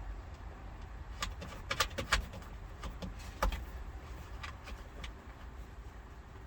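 Several light, sharp clicks and clinks, loudest in a quick cluster about two seconds in, of small parts being handled, over a low steady rumble.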